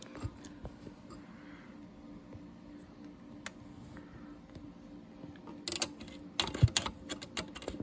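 Small metal clicks and taps as a hand tool works on the SCM Sterling typewriter's back-plate bracket to bend it off its post, sparse at first, then a quick cluster near the end, over a faint steady hum.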